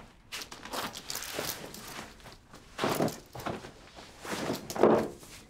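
Clothing rustling and feet shuffling on a wooden floor as a pair of jeans is pulled down and off, louder about three seconds in and again near the end.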